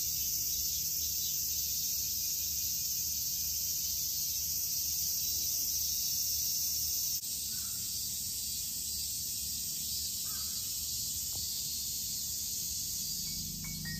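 Steady chorus of summer cicadas, a dense high-pitched hiss, with a couple of faint crow caws about halfway through. Light mallet-percussion music starts to come in at the very end.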